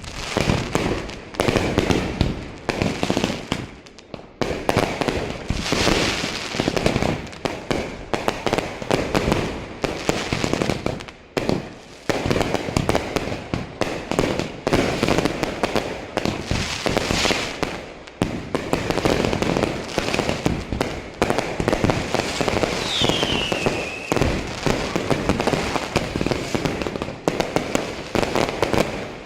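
Fireworks going off in a dense, continuous barrage of bangs and crackling, with a short falling whistle a little over two-thirds of the way through.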